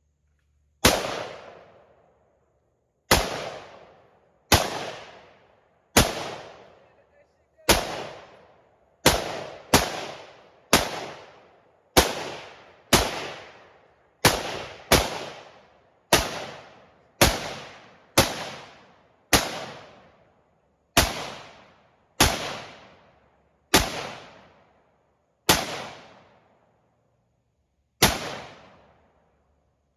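AR-15 rifle fired semi-automatically, about twenty single shots at an uneven pace roughly one to two seconds apart, each sharp crack followed by an echo that dies away over about a second.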